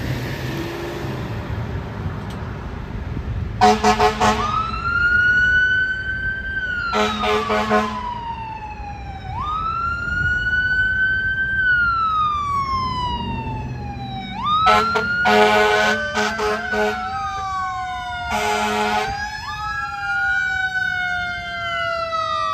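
Fire engine siren wailing in a repeating cycle, rising quickly and falling slowly, broken by four rounds of air horn blasts, some of them several in quick succession. About two-thirds of the way through, a second, lower siren tone joins and falls slowly.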